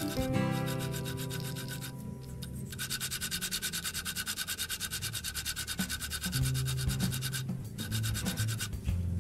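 A cartridge bottom bracket turned by hand on its spindle, giving a fast, evenly pulsed rubbing sound for several seconds, over background music.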